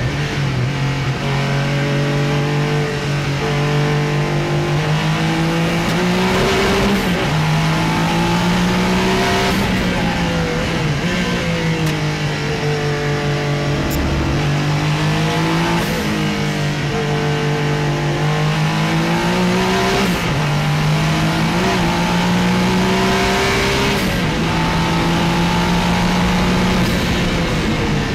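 Porsche 956's twin-turbocharged flat-six racing engine heard from inside the cockpit at racing speed. Its pitch climbs and drops again and again as the car accelerates and slows for corners.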